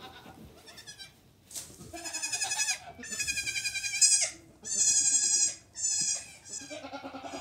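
Nigerian Dwarf goat kids bleating: about five high, wavering bleats one after another, starting about a second and a half in and loudest in the middle.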